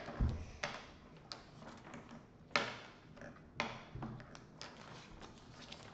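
Scattered light taps and rustles of paper drawings being handled, with a few sharper knocks about half a second, two and a half and three and a half seconds in.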